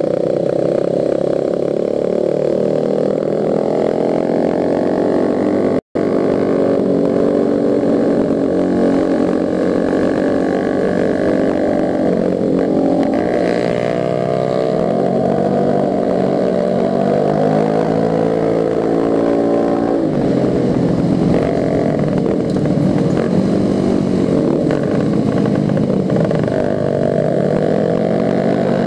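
Small single-cylinder four-stroke motorcycle engine revving up and down as the bike speeds up and slows through bends, with wind noise over it. The sound drops out for an instant about six seconds in.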